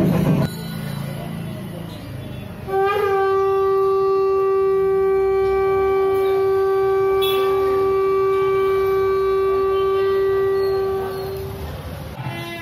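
Conch shell (shankha) blown in one long steady note of about nine seconds, starting about three seconds in with a short upward swoop in pitch and fading near the end.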